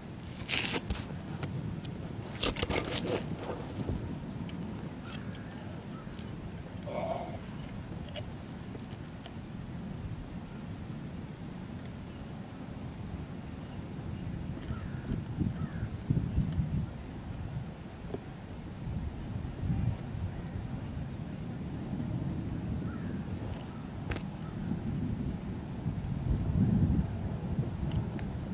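Gusty storm wind rumbling unevenly on the microphone, rising and falling, over a steady pulsing chirr of insects. Two brief sharp noises come in the first three seconds.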